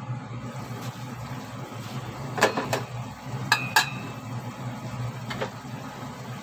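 Stainless-steel pot lid being lifted off and set aside: two knocks, then two sharper metal clinks with a short ring, and a faint tap near the end, over a steady low hum.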